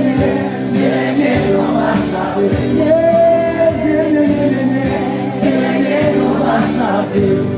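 Music with a large crowd singing along, the voices holding long notes.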